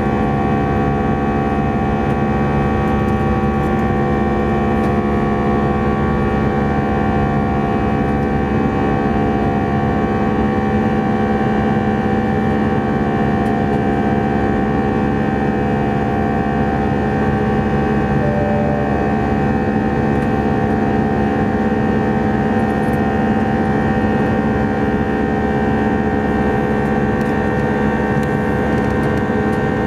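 Airbus A319 jet engines and airflow heard from inside the cabin in climbing flight: a steady drone with several fixed whining tones over a rushing hiss.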